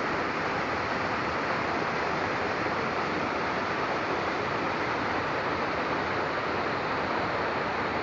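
Waterfall pouring over rocks into a plunge pool: a steady, even rush of falling water.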